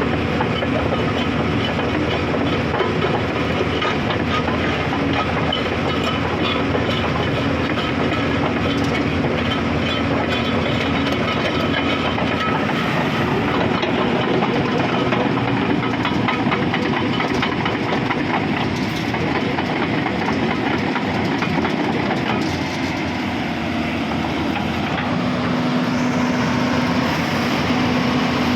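Hyundai 210 crawler excavator working, its diesel engine running steadily with machine noise; the engine's steady hum eases for a while in the later part and comes back near the end.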